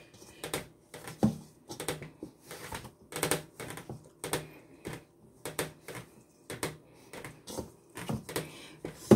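Dough being kneaded by hand in a stainless-steel bowl: a steady run of short, irregular thumps and knocks of the dough and hands against the metal bowl, about two to three a second.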